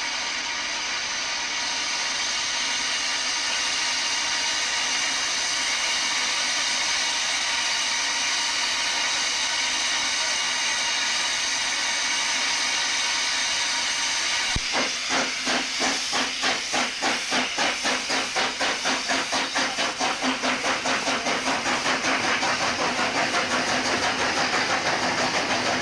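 Narrow-gauge double Fairlie steam locomotive standing with steam hissing steadily. About fifteen seconds in it starts away, and its exhaust beats come at about three to four a second and quicken as the train pulls out.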